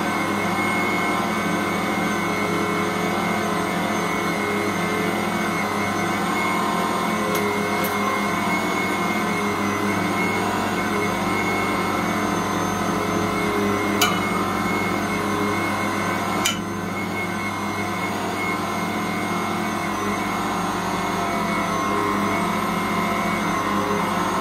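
Ankarsrum 6230 stand mixer running steadily as it kneads bread dough. A sharp click comes about halfway through and another a couple of seconds later, after which the running sound is slightly quieter.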